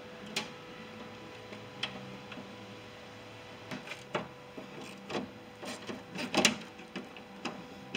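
Light clicks and knocks of hand tools and latch hardware being worked inside a Ford E350's rear cargo door, over a faint steady hum. A couple of lone clicks come first, then a busier run of them from about four seconds in, the loudest a little past six seconds.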